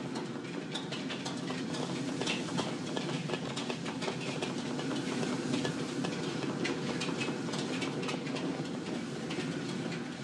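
Busy commercial kitchen at work: knives chopping on cutting boards and metal utensils clattering in a fast, uneven patter of clicks over a steady hiss from the wok burners.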